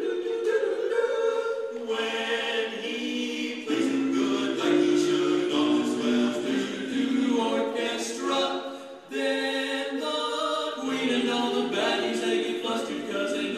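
Barbershop-style a cappella singing: men's voices in close four-part harmony holding and moving through chords, with a brief break about nine seconds in.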